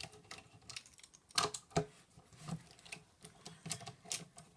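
Scattered light clicks and taps of a screwdriver and small metal parts being handled while a vacuum motor unit is dismantled, a few louder ones about a second and a half in and near the end.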